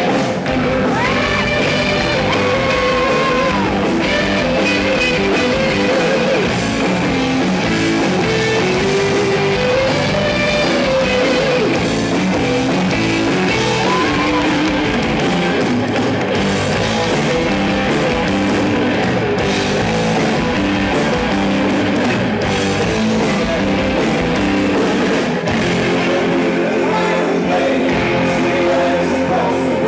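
Live rock band playing electric guitars and drum kit, with singing, loud and steady throughout.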